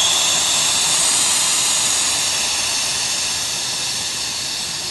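Air rushing out of a motorcycle rear tire through its open valve stem, the valve core removed: a loud steady hiss that slowly fades as the tire deflates.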